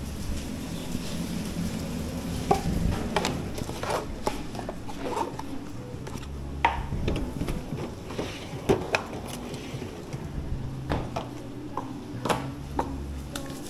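Food preparation at a sushi counter: irregular knocks and clatters of kitchen utensils and dishes, over a steady low hum.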